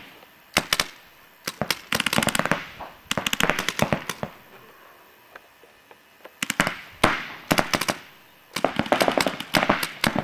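Paintball markers firing in rapid bursts of sharp pops, several volleys with a lull of about two seconds in the middle.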